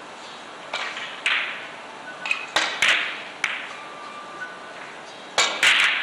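Carom billiard balls clacking: a series of sharp clicks with a short ring after each, in three clusters, about a second in, around two to three and a half seconds in, and near the end.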